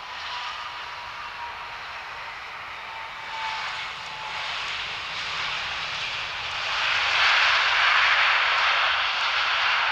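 Jet engines of an Airbus A320-family airliner on its landing roll just after touchdown: a steady jet rush with a faint whine at first, swelling and growing loudest about seven seconds in.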